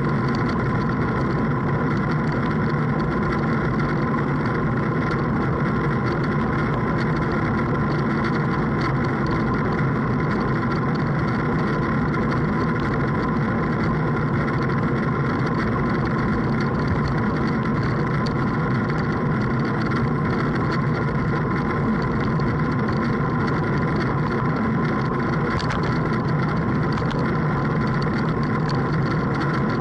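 Boat engine running at a steady speed, holding an even pitch throughout.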